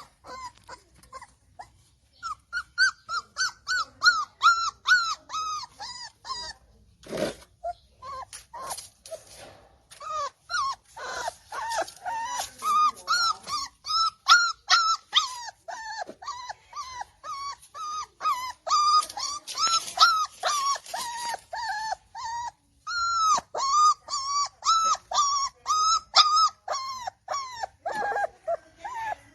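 Chihuahua puppy crying: a long run of short, high-pitched whimpering cries, each dropping in pitch, about three a second, with a brief break twice along the way.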